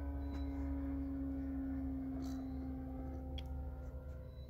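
Electric RC airplane's motor and propeller in flight, a steady-pitched hum that fades slightly toward the end as the plane moves away, with a low rumble underneath.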